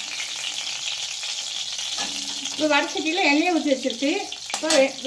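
Hot oil sizzling steadily in an iron kadai as a perforated ladle stirs it. A person's voice comes in over the sizzle from about halfway through.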